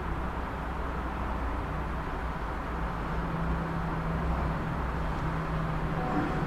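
Steady distant engine rumble, with a low steady hum joining about a second and a half in.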